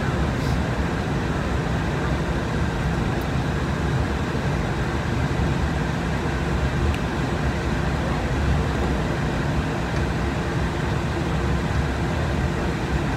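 Steady flight-deck noise of an Embraer jet taxiing: its Rolls-Royce AE3007 turbofans running at taxi power under a constant rush and hum, with a few faint clicks.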